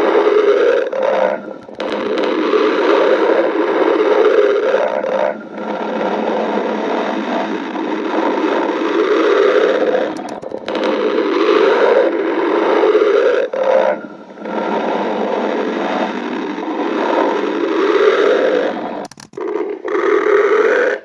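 A person's stomach growling: long, loud gurgling rumbles lasting several seconds each, broken by short pauses every four or five seconds.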